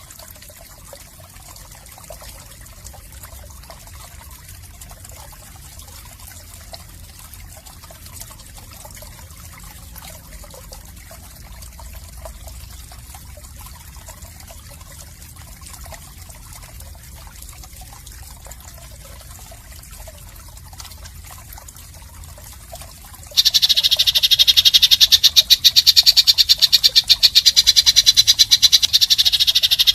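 A faint, quiet stretch, then about 23 seconds in a loud, harsh, rapidly pulsing rattling call starts suddenly and keeps going. It is an animal call of the kind used as 'isian kasar' (harsh fill) in songbird training recordings.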